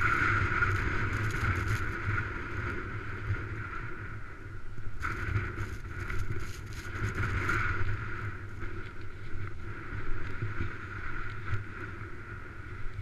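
Skis sliding and scraping over packed snow, with a steady wind rumble on the camera's microphone and a few short clicks. The sound grows quieter over the first few seconds as the pace eases.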